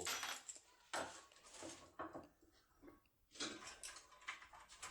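Faint, scattered small clicks and scrapes of metal locksmith tools and a lock cylinder being handled.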